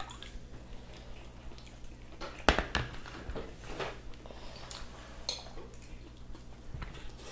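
Eating sounds at a table: forks and spoons clinking and scraping on plates, with a sharper knock or two about two and a half seconds in and a few lighter clicks after.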